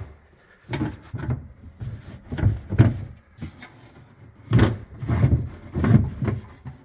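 Interior panel piece being worked into place, giving a run of about nine separate knocks and scrapes as it is pushed and slid in.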